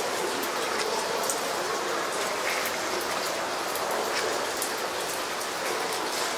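Steady rain falling, an even hiss flecked with many small drop ticks.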